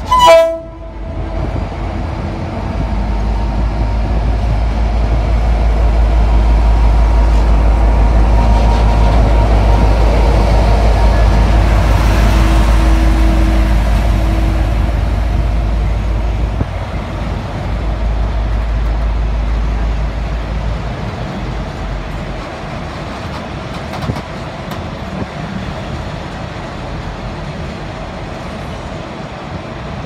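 A short toot from a V/Line N class diesel locomotive's Leslie RS5T five-chime horn at the very start. Then the locomotive's diesel engine is heard as a steady low rumble as it passes and pulls away under power. The rumble drops away about two-thirds of the way through, leaving the quieter noise of passenger carriages rolling past.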